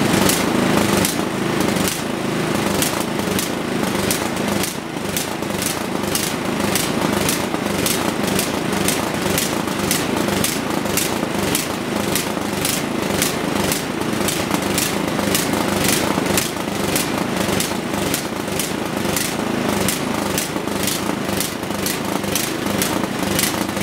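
Small single-cylinder snowblower engine running steadily.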